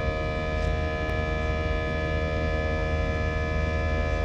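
Airbus A319 passenger-cabin noise during the climb after takeoff: a loud, steady jet-engine drone with a low rumble and several steady whining tones over it.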